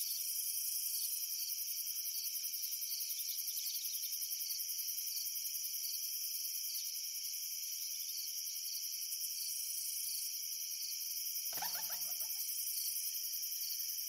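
Steady high-pitched chorus of insects trilling. A short, lower call-like sound cuts in briefly near the end.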